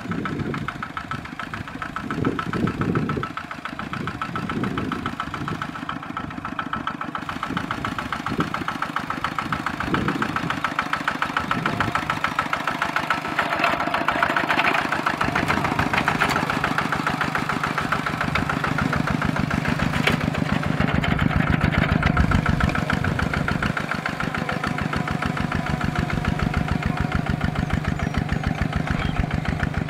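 Kubota RT140 single-cylinder diesel engine of a two-wheel walking tractor running under load as it pulls a plow through rice-field soil, a rapid, steady chugging. It swells in the first dozen seconds, then settles into a steadier, somewhat louder running.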